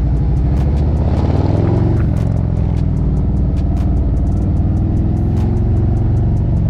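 Harley-Davidson CVO's V-twin engine running under way, its pitch rising as it accelerates about a second in, then holding a steady cruise.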